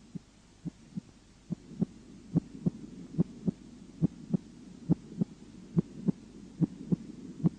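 Human heart sounds heard by auscultation through a stethoscope: a regular lub-dub, the first and second heart sounds in pairs at about seventy beats a minute, over a steady low hiss. The beats grow louder about a second and a half in.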